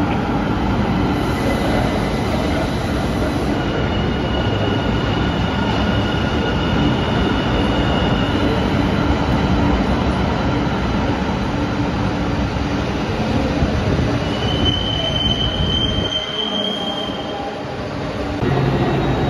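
Metro light rail train running through a shallow underground station: a steady rumble with thin wheel squeal, and a stronger high-pitched squeal lasting about three seconds near the end.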